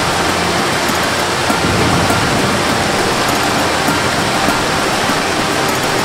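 Waterfall cascading over rocks: a steady, loud rush of falling water.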